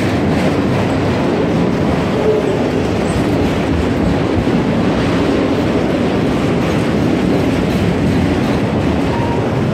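Autorack freight cars rolling past close by: a steady, loud rumble of steel wheels on the rails.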